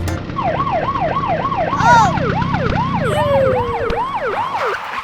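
Siren sound effect, a fast yelping siren that rises and falls about two and a half times a second over a low rumble.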